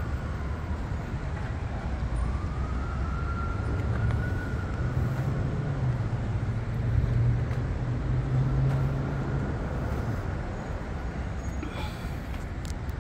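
Car driving slowly on city streets: a steady low engine and road rumble, with a faint whine that rises and falls in pitch as the speed changes.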